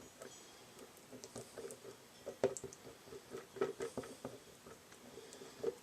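Faint, scattered light clicks and small scraping taps of hand work: a small screwdriver dabbing and scraping 5-minute epoxy into drilled holes in a wooden berry-picker rake.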